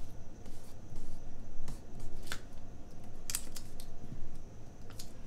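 Paper sticker handling: a washi sticker strip rustling and crackling as it is peeled and pressed down by hand onto a planner page, with a few sharp clicks scattered through.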